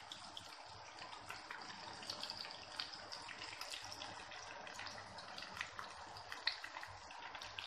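Battered bone-in chicken pakoda pieces deep-frying in hot oil: a steady sizzling hiss scattered with many small crackles and pops.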